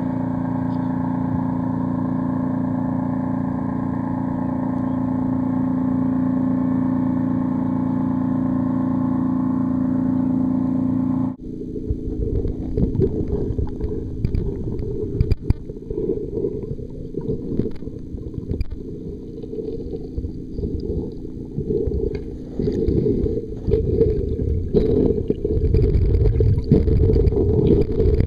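A steady droning hum with a strong low tone, made of several level tones, runs for about the first eleven seconds. It cuts off suddenly as the waterproof camera goes underwater. In its place come muffled underwater rumbling and sloshing, with frequent knocks from the camera being handled.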